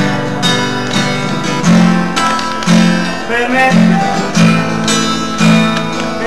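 Acoustic guitar strummed in a steady rhythm by a street musician.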